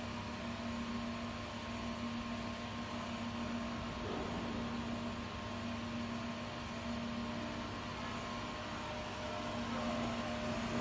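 Automatic pipe-elbow welding machine running with its arc lit on a steel elbow seam: a steady electrical hum over an even hiss.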